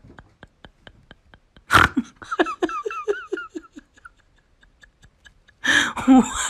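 Laughing voice: a sudden loud outburst about two seconds in, running on as a string of short 'ha-ha' syllables that each drop in pitch, and a second loud burst near the end. Under it runs a faint steady ticking of about four ticks a second.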